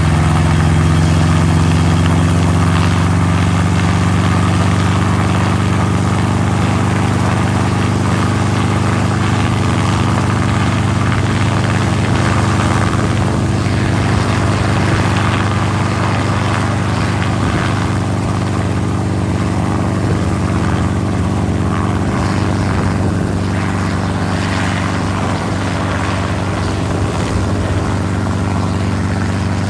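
Light helicopter running with its rotor at flight speed as it lifts off into a low hover: a steady, even engine and rotor hum made of several held low tones.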